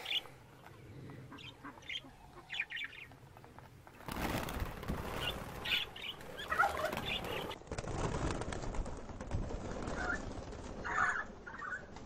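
Young budgerigars fluttering their wings and chirping as they are let out into an aviary. Short, sparse chirps at first; from about four seconds in, a louder continuous rustle of wings with chirps.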